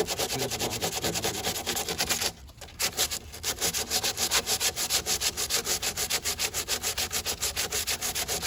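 80-grit sandpaper rubbed by hand over hardened body filler on a car door, rapid back-and-forth strokes of about five or six a second, pausing briefly a little after two seconds in.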